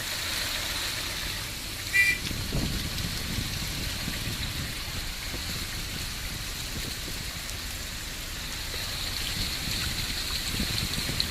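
Heavy rain falling, a steady even hiss, with a low rumble underneath. A brief, sharp high-pitched chirp sounds about two seconds in.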